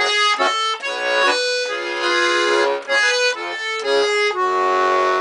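Bayan (Russian button accordion) playing the instrumental close of a song: a run of short melody notes and chords that settles about four seconds in onto a long held chord.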